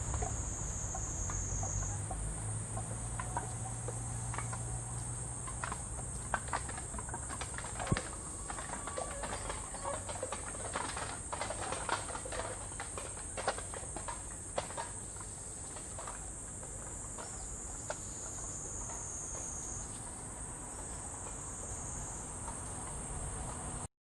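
Steady high-pitched chorus of insects, shifting up and down in pitch a couple of times, with scattered light clicks and rustles through the middle.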